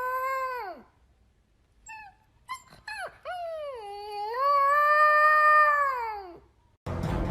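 A dog howling: a long howl that falls away and stops just under a second in, a few short yips around two to three seconds, then a second long howl that dips and rises before trailing off.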